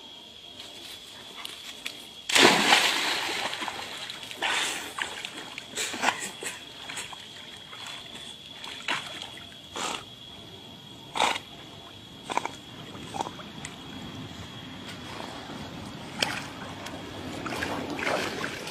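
A dog leaps into the water with one big splash about two seconds in, followed by irregular smaller splashes and sloshing as it swims. Near the end the water sloshes longer as the dog scrambles out onto the bank.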